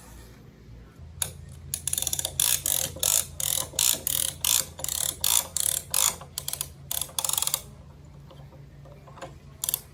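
A ratchet tensioner cranked in quick repeated strokes, each stroke a burst of clicking from the pawl, as the stacked slabs are banded tight. The strokes come about two a second, pause for a second or two, and start again near the end.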